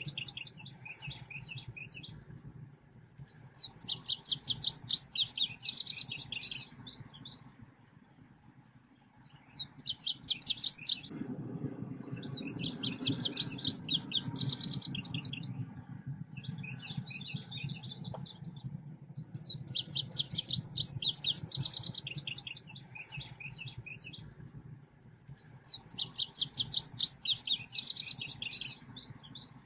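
Recorded song of the bird Indonesians call selendang biru, played as a lure and song-tutor track: about six bursts of fast, high chirping trills, each a few seconds long, with short pauses between. A steady low hum runs underneath and grows louder about a third of the way through.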